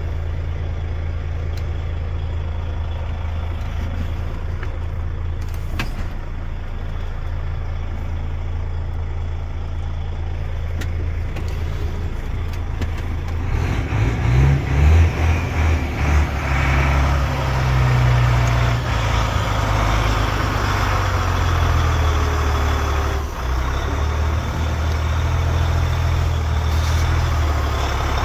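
DAF XF 105.460 tractor unit's PACCAR MX 12.9-litre straight-six diesel idling steadily, heard from the cab. About halfway through it becomes louder and fuller, and stays so.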